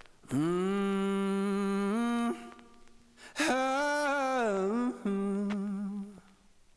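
Background music: a voice humming long held notes in three phrases, with little or no accompaniment. The first note steps up in pitch near the end of the first phrase, and the middle phrase dips and comes back up.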